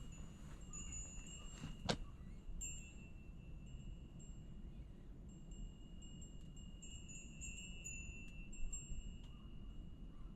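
A high chime ringing on and off in the same two clear tones, like a wind chime, over a steady low rumble. There is a single sharp click about two seconds in.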